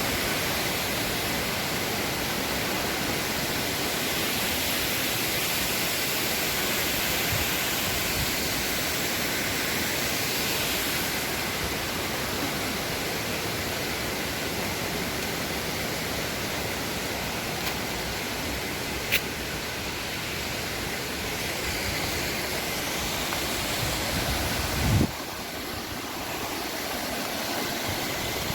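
Düden Waterfall: a steady rush of falling water. A short click about two-thirds of the way in and a brief thump near the end.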